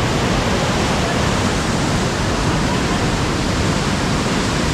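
Water rushing steadily through an anicut's spill gate: a loud, even noise with no breaks.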